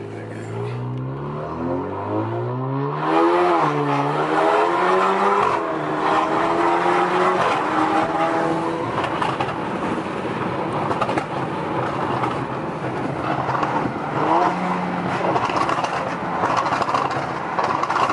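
Tuned Alfa Romeo Giulia's 2.0-litre turbo four-cylinder accelerating hard, heard from inside the cabin. The engine note climbs and drops back at each upshift over the first several seconds, then settles into a rougher, noisier run with scattered crackles.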